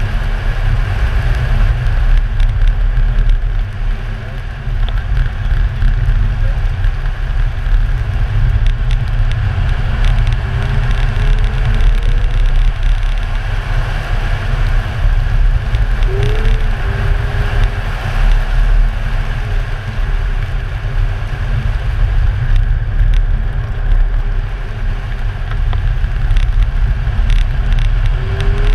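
Car driving on a snow-covered track, heard through an exterior-mounted camera: a heavy, steady low rumble of wind buffeting the microphone and tyre and road noise, with a few faint short rising whines now and then.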